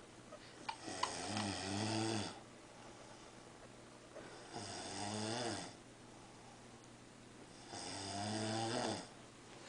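A sleeping man snoring: three snores in a steady rhythm about three seconds apart, each about a second and a half long with a rasping, pitched rattle.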